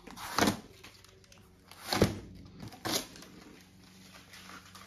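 Yellow adhesive tape strips being ripped off a cardboard shipping box: three short, sharp tearing sounds, the second about a second and a half after the first and the third a second later.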